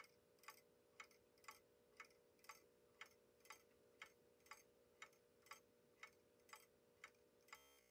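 Seth Thomas 86T time-only pendulum clock movement ticking faintly and evenly, about two ticks a second, as the escape wheel teeth drop onto the anchor pallets of its freshly adjusted escapement. The ticking cuts off just before the end.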